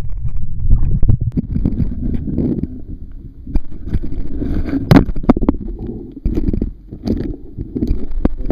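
Handling noise from a waterproof camera brought up out of the water: a low, muffled rumble with gurgling, broken by many sharp knocks and scrapes against the camera body, the loudest about five seconds in.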